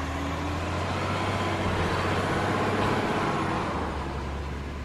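A motor vehicle engine running with a steady low drone and a hiss like road noise. It begins right after an abrupt edit cut and stops suddenly near the end.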